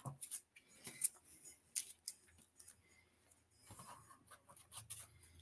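Comic books being handled and shuffled: faint rustling of paper with scattered light clicks and taps.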